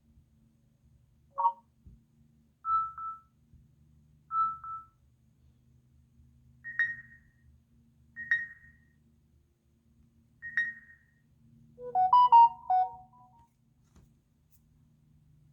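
Samsung Galaxy A40 phone speaker playing a series of short alert tones one after another. First a brief chime, then a single beep twice, then a higher single ping three times. Near the end comes a quick run of several notes.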